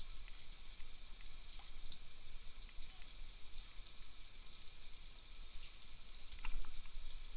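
Steady outdoor hiss with a constant high-pitched drone, with a few light clicks and taps; a short louder stretch with a click about six and a half seconds in.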